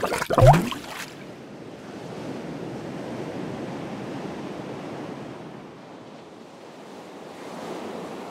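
Sea waves washing on a shore: a steady rush of surf that swells, ebbs and swells again. It opens with a brief pitched sound with a sliding tone.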